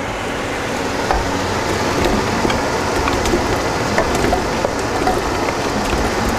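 Mutton broth boiling hard in a large stockpot, a steady bubbling hiss, with small plops and clicks as cubed potatoes are tipped in from a glass bowl.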